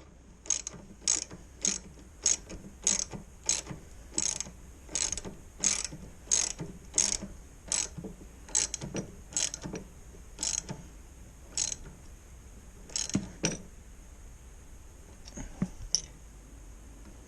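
Socket-set ratchet wrench clicking as a nut is run down on the front fork bolt, in quick strokes about two a second, slowing to a few spaced strokes near the end as it tightens.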